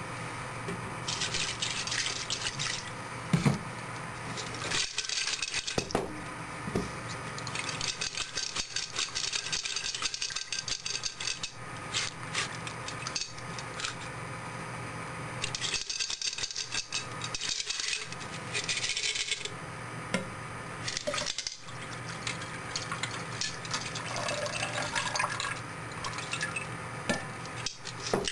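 Broken ceramic CPU pieces clinking and scraping against glassware, with water pouring and splashing as they are handled and rinsed, in several irregular bouts of small clicks.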